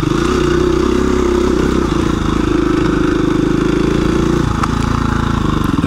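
KTM 350 EXC-F single-cylinder four-stroke dirt bike engine running at steady revs while riding, with wind noise. Near the end the revs drop as the throttle is closed.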